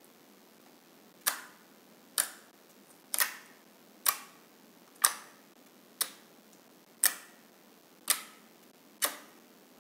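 Fingers pressing and poking into a soft, glossy slime, giving short, sharp clicking pops about once a second, nine in all, each dying away quickly.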